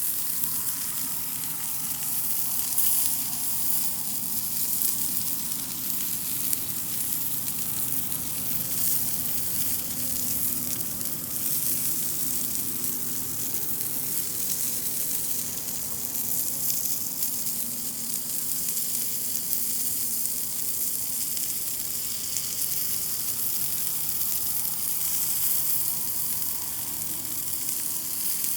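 Pork-belly meat rolls sizzling steadily as they fry over a wood campfire.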